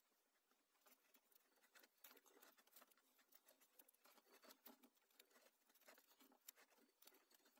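Very faint rustling and small irregular clicks of hands twisting stripped electrical wires together and handling a power cord.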